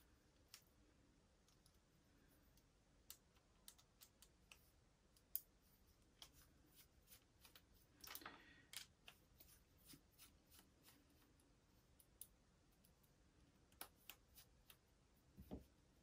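Mostly quiet, with faint scattered clicks and light taps of small metal screws, a hex driver and plastic RC kit parts handled on a workbench as the screws are threadlocked. There is one sharper click about five seconds in, a brief rustle around eight seconds and a dull knock near the end.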